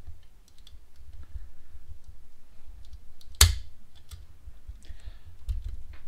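Lock pick and tension wrench clicking and scraping over the pins inside a clear acrylic practice padlock as the pick is worked in and out of the keyway: scattered light clicks, with one sharp, loud click about three and a half seconds in.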